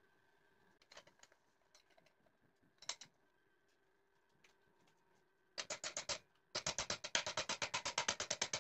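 A few light clicks of a steel bar being handled in a bench vise. From about five and a half seconds in, a hammer strikes the clamped steel in a fast, even run of light blows, about six a second, with one short pause near the start of the run.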